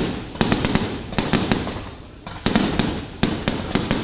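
Fireworks display: rapid, uneven bangs of shells bursting, several a second, each with a trailing rumble, and a short lull about two seconds in.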